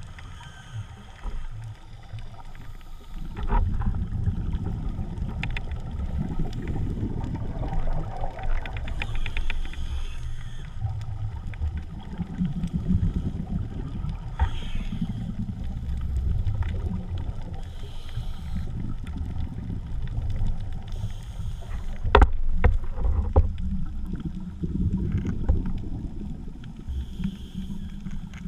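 Underwater rumble of water rushing over the camera's waterproof housing as the diver swims along the bottom, rising about three seconds in. A few sharp clicks come about three-quarters of the way through.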